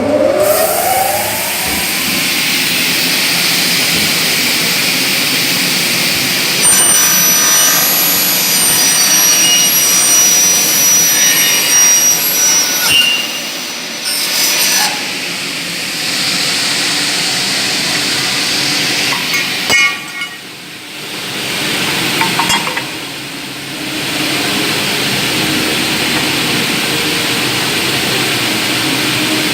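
ZLJG-500 double-head cutting saw with 500 mm blades that rise from below: the saw motor spins up with a rising whine at the start, then the blades run steadily. About a third of the way in, a cut through a profile adds high squealing tones for several seconds, and the noise drops off briefly twice near the end.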